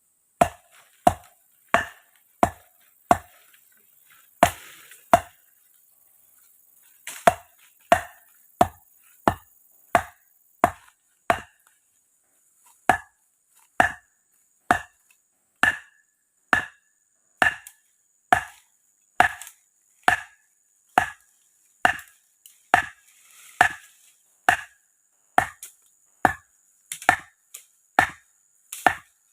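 Wood being chopped in a steady rhythm, about one and a half blows a second, each a sharp knock with a brief ringing tone. The chopping breaks off twice, for a second or two each time.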